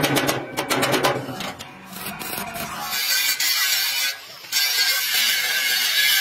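Irregular crackling and clicking of arc welding on steel. About three seconds in, an angle grinder starts grinding steel with a steady high grinding noise, which breaks off briefly just after four seconds.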